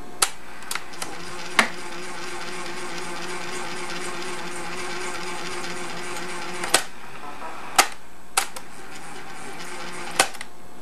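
The piano-key transport buttons of a 1961 Webcor Microcorder reel-to-reel tape recorder click sharply as they are pressed, several times over. Between the clicks, from about a second and a half in to about two thirds through, the recorder's tape transport motor runs with a steady hum.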